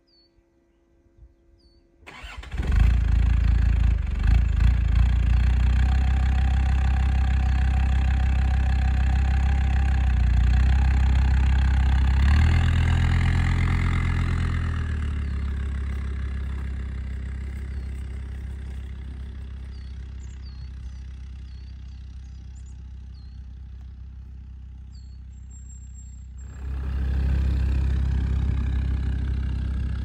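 Land Rover Discovery 2's engine starting about two seconds in and running at idle, with a brief rise in revs. The engine then fades steadily as the vehicle drives off over grass, and it is suddenly louder again near the end as it pulls away.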